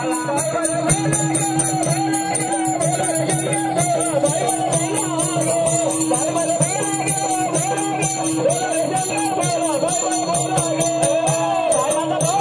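Instrumental folk accompaniment of a Marathi Bharud troupe: a steady drone under a wavering, bending melody, with shaken jingles or rattles keeping a quick, even beat.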